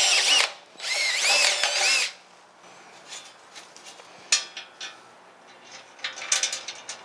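Electric drill boring into steel, running in short bursts whose pitch rises and falls, the longest two in the first two seconds, then light clicks and a brief burst about six seconds in.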